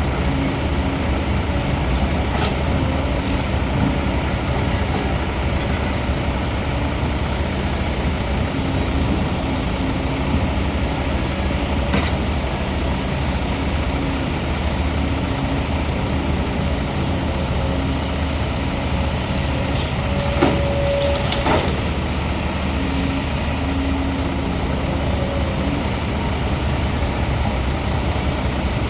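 Heavy excavator's diesel engine running steadily under load, with a whine that comes and goes and a few sharp metallic knocks about twelve seconds in and twice around twenty to twenty-one seconds in.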